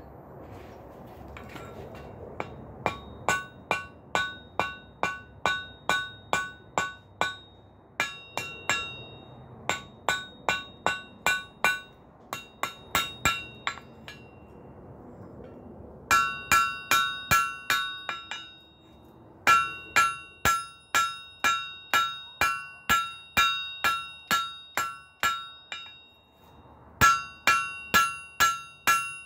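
Ball-peen hammer striking hot steel on an anvil, about two or three blows a second, each with a bright ring from the anvil. The blows come in five runs with short pauses between, and the later runs are louder. This is finish forging of a forge-welded steel block.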